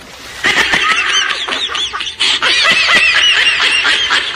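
High-pitched cackling laughter, a rapid run of quick 'ha's starting about half a second in, right after the tail of a splash into muddy water.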